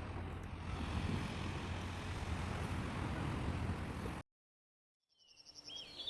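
Steady rumbling noise of a moving vehicle, cutting off abruptly about four seconds in. Near the end a few high chirping tones fade in.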